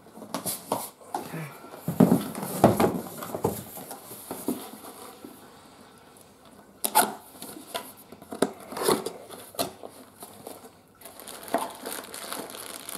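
Cardboard boxes being handled and lifted out of a packed shipping carton: irregular scrapes, rustles and knocks of cardboard against cardboard, busiest about two seconds in and again about seven to nine seconds in.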